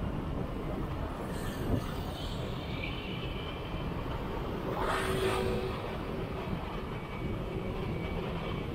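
Steady city traffic noise and wind on the microphone from riding a bicycle along a busy road, with a brief louder swell of a passing vehicle about five seconds in.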